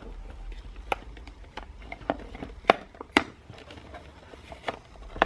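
Unboxing handling noise from a GoPro Hero 5 Black box: cardboard and plastic packaging rustling, with scattered sharp clicks and taps as the camera on its plastic mount is slid out of the box.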